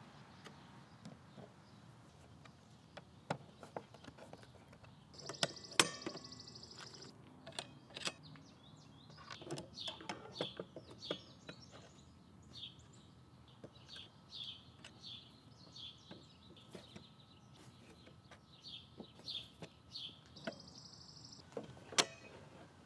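Metal hinge and leaf-support hardware being screwed onto a wooden table: scattered metallic clicks, two brief high whirs of a power screwdriver, and a run of short squeaks, about two a second, as screws turn into the wood.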